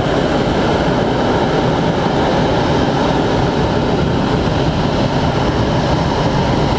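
Hot-air balloon's propane burner firing in one long blast, a loud steady roar.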